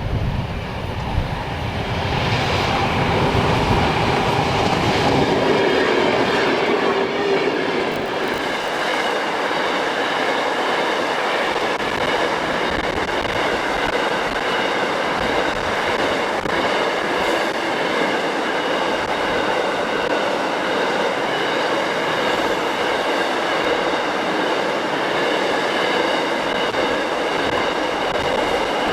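Freight train wagons rolling past, with a continuous clatter of steel wheels on rail and steady high ringing tones from the wheels. Wind buffets the microphone in the first couple of seconds.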